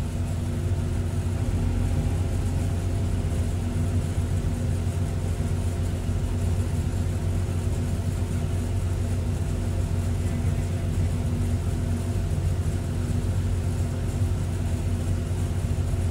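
Diesel engine of a Sumitomo hydraulic excavator running steadily at low revs, heard from the operator's cab, with a deep even hum.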